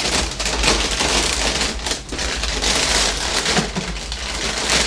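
Clear plastic bag crinkling and rustling as it is handled and pulled off a foam model-plane fuselage.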